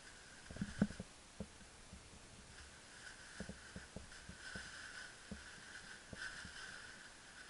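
Soft thumps and handling rustle from gloved hands skinning a shot rabbit, the loudest knocks about a second in and another run of them a few seconds later, over a faint steady high-pitched hum.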